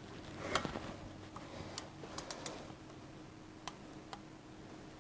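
Light metallic clicks and ticks, a handful spread over a few seconds with the loudest about half a second in. They come from a spoke torque wrench worked on the spoke nipples of a Harley-Davidson Pan America's spoked rear wheel while spoke tightness is checked.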